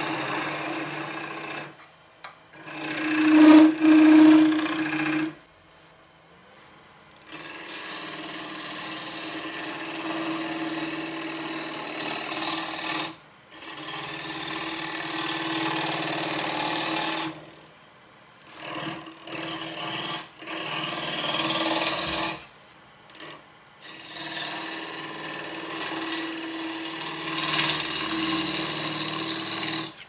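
A gouge cutting alligator juniper spinning on a wood lathe: a rough scraping as shavings come off, in several passes of a few seconds each with short breaks between, over the lathe's steady hum. The loudest pass comes about four seconds in.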